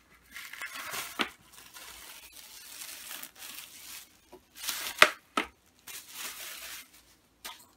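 Plastic cling film being peeled off a tray and crumpled, crinkling and crackling unevenly, with a louder burst of crumpling about five seconds in.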